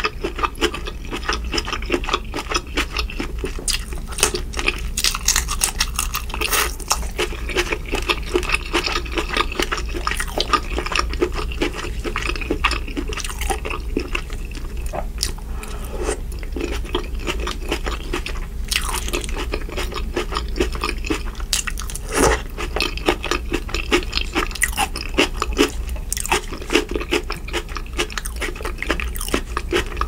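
Close-miked chewing of boiled shrimp: a steady stream of small wet smacks, clicks and soft crunches from the mouth.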